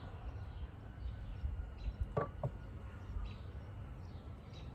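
Two sharp knocks a third of a second apart, about two seconds in, as the back of a wooden beehive is opened, over a steady low rumble and faint bird chirps.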